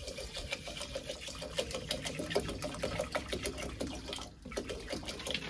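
Water glugging out of a plastic bottle into a metal pressure-cooker pot of uncooked rice: a fast, irregular run of gurgles over a steady ringing note from the filling pot, with a brief break about four seconds in.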